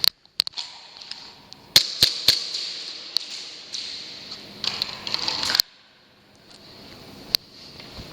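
Airsoft gun firing single shots: a few sharp cracks, three in quick succession about two seconds in, over a steady high hiss.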